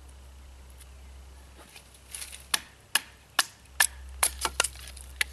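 Wood being split into smaller pieces with a knife: a run of sharp wooden knocks and cracks starting about two seconds in, roughly two a second and coming faster near the end.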